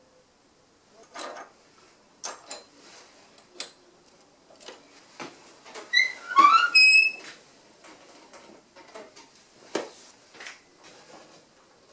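Handling noise of stained-glass work: sharp taps and clicks of glass pieces being set down and moved. About six seconds in comes a brief squeak that rises in pitch, ending in a short ringing tone.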